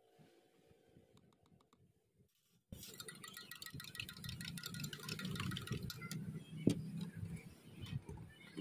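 Faint, near-quiet sound with a few soft clicks, then about two and a half seconds in a sudden jump to busy, rapid clinking and clattering over a low rumble.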